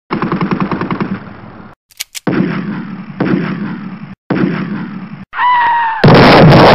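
Sound-effect bursts of rapid automatic gunfire, four runs each about a second long. Then comes a brief whine, and about six seconds in a loud blast begins.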